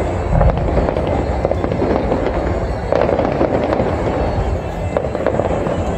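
Aerial fireworks bursting overhead, many bangs in quick succession with no let-up.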